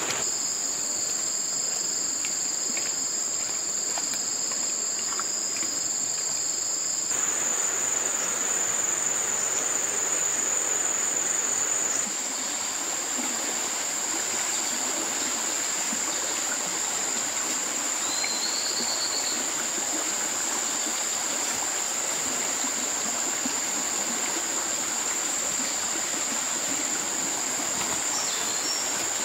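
Insects trilling in a steady, continuous high tone over a haze of running water. The background shifts abruptly about 7 and 12 seconds in, and a brief chirp comes about 18 seconds in.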